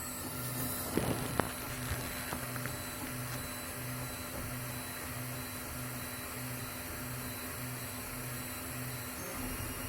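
Anycubic i3 Mega 3D printer running a print: a steady hum from its cooling fans with an even pulsing drone from the stepper motors, a little under twice a second. A few sharp clicks about a second in.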